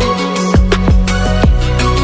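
Background music: electronic track with a steady kick-drum beat about twice a second over sustained synth notes.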